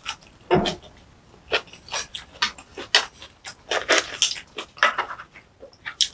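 Close-miked eating: a person chewing with wet, smacking and crunching mouth sounds in quick, irregular clicks, and a short low hum or breath about half a second in.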